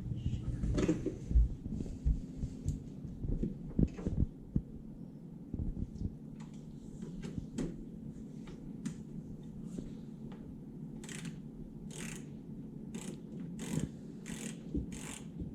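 Phillips screwdriver working a tight screw out of the oven's mounting, with scattered clicks and knocks, then a regular run of sharp clicks about twice a second near the end.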